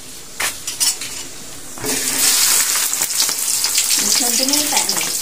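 Food going into a wok of hot cooking oil and frying with a loud, steady sizzle that starts suddenly about two seconds in, after a few light clicks.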